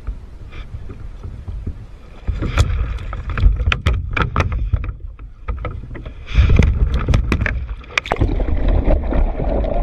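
Water splashing and thrashing beside a plastic kayak, with a string of sharp knocks and clatter against the hull and gear over a heavy low rumble on the microphone. The loudest surge of splashing comes a little past the middle, and the sound stays dense and noisy toward the end.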